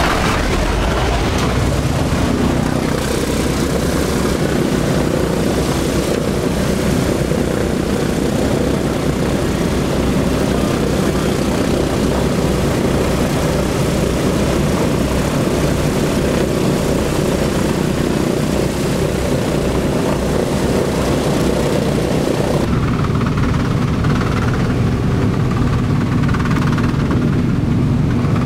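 A B-17's Wright R-1820 Cyclone nine-cylinder radial engines running, heard from inside the fuselage as a loud, steady, throbbing propeller drone. About two-thirds of the way through, the sound changes: there is less hiss and a deeper drone.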